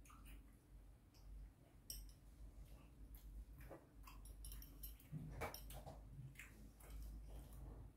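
Near silence with faint chewing of soft fruit and a few light clicks of a metal fork, a little livelier about five seconds in.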